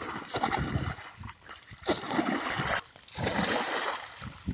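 Muddy canal water splashing and sloshing as a long-handled hook is dragged and swept through the shallows, in about three bouts.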